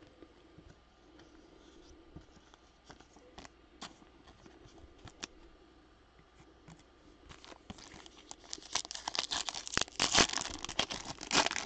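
Faint clicks and taps of trading cards being set down. About two-thirds of the way in comes a louder, crinkling tear as a Topps Chrome card pack's wrapper is ripped open, loudest near the end.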